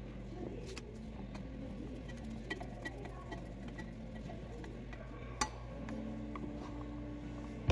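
Light metallic clicks and taps of a hand tool working at the muffler and spark arrestor bolt of a Husqvarna 372XP chainsaw, with one sharper click about five and a half seconds in, over a steady low hum.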